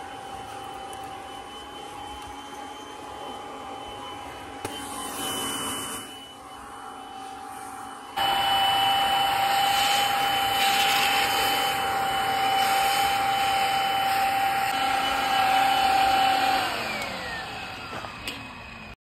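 Upright vacuum cleaner running through its hose attachment: a steady high whine over the hiss of rushing air. About eight seconds in it turns suddenly louder, and near the end the motor is switched off and the whine falls in pitch as it spins down.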